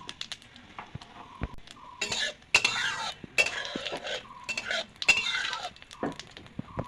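Metal spatula stirring and scraping in a kadai, several scraping strokes with sharp clinks against the pan as whole spices are tempered in oil.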